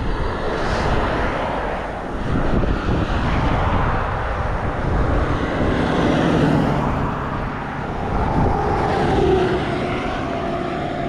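Road traffic passing close by: a car and then a pickup truck go past, tyre and engine noise swelling as each one passes, with a low engine hum as the truck goes by around the middle.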